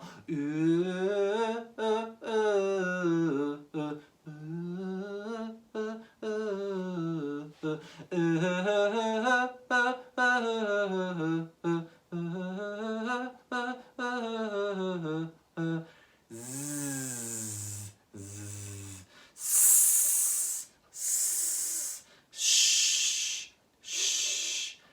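A single voice singing vocal warm-up glides on a vowel, sliding up and then down in pitch again and again with short breaths between. Near the middle it drops to two low notes, then ends with four short hissing exhalations.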